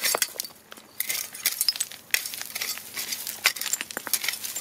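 Dry gravel and small stones scraping and clinking as a metal knife blade and a gloved hand rake through them, in quick irregular scrapes and clicks.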